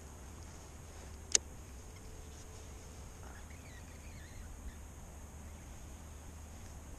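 Quiet outdoor background with a steady low rumble, broken once, about a second in, by a single sharp click; faint wavering chirps come near the middle.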